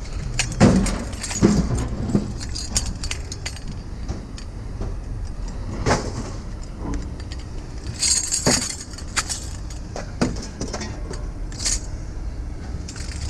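Metal clinking and jangling as a metal chandelier frame and its hanging chain are handled among scrap, with a few sharper clanks, the loudest about six and eight and a half seconds in, over a steady low rumble.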